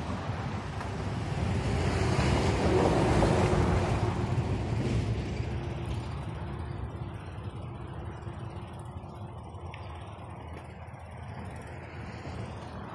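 A motor vehicle passing by, growing louder to a peak about three seconds in and then fading slowly.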